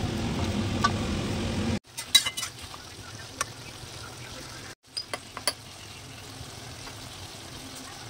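A steady low hum for under two seconds, then, after a cut, a metal spatula clinking against a steel kadai as cubed vegetables are stirred. There are a few quick clinks just after the cut and a few more halfway through, over a faint steady frying sizzle.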